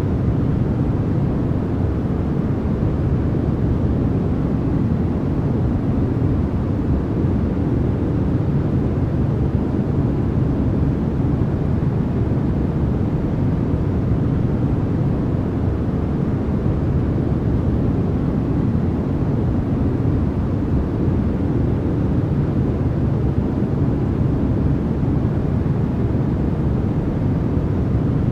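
Continuous synthetic noise of the kind sold as white noise for sleep, weighted toward the low end so it sounds like a deep, even rushing rumble rather than a bright hiss. It holds perfectly steady with no changes.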